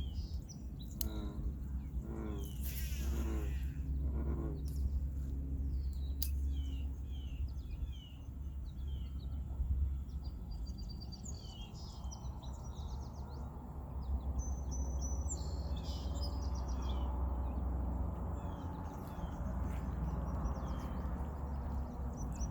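Small birds chirping and singing repeatedly over a steady low outdoor rumble.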